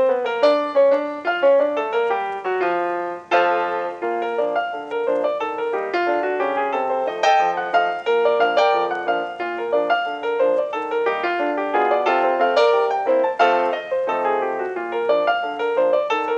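Background music: a piano-like keyboard playing a steady stream of quick melodic notes.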